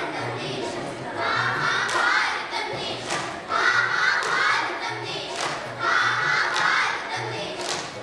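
A group of children singing loudly in chorus, in short, repeated, shouted phrases, with sharp hand claps between phrases.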